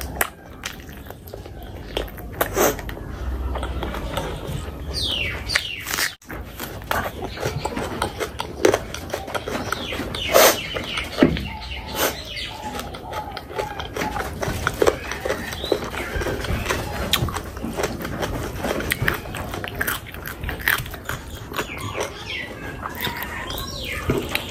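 Close-miked eating sounds: wet chewing with frequent sharp mouth clicks and lip smacks, and a few short squeaky slurping or sucking sounds, one about five seconds in, one near the middle and one near the end.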